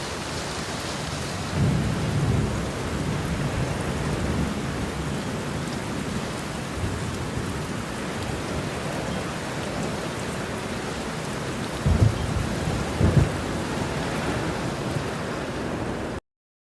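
Steady rain with low rumbles of thunder, including two sharper low thumps near the end. The sound cuts off suddenly just before the end.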